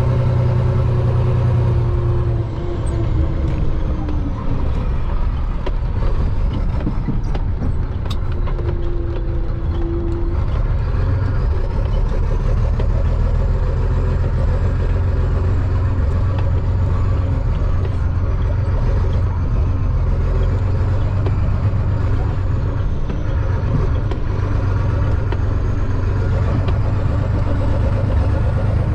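Diesel engine of a Chenglong concrete mixer truck running steadily while driving, heard from the cab, with its note changing a few times.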